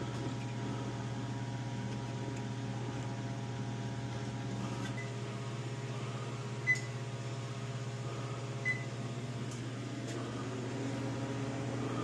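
Newly replaced convection fan motor of a Frigidaire Professional double oven running with a steady hum, nice and quiet on its new bearings. Three short high beeps from the oven's controls come about five, seven and nine seconds in.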